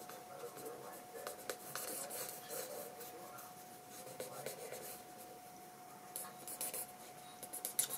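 Pencil point scratching on sketchbook paper in short, quick hatching strokes, coming in clusters about a second in and again near the end.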